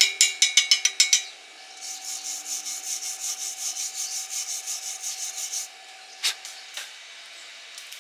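Rapid metal taps, about six a second, that stop about a second in, then rhythmic scraping strokes, about five a second, for some four seconds: a chipping hammer and a steel wire brush cleaning slag off a stick weld. Two sharp clicks follow near the end.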